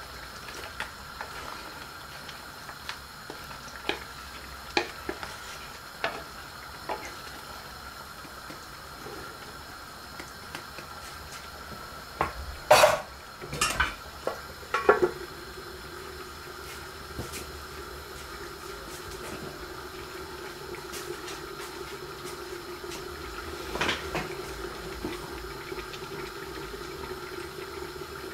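Curry simmering and sizzling in an iron karahi, with a wooden spatula knocking and scraping against the pan through the first few seconds. About halfway through comes a burst of loud metal clanks as a second karahi is put over it upside down as a lid, and after that the dish simmers under the lid with a steady hiss.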